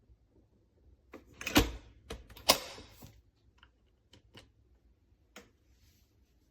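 A handful of irregular clicks and knocks. The two loudest come about a second and a half and two and a half seconds in, followed by a few fainter ticks.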